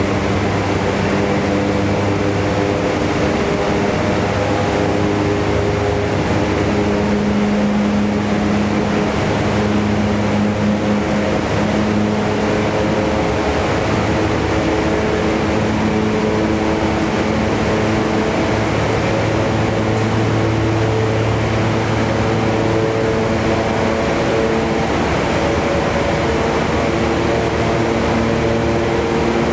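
Large wind-wave tank running at high wind: the wind fan's steady roar, with several low humming tones that shift a little in pitch, over the rush of wind-driven spray and waves.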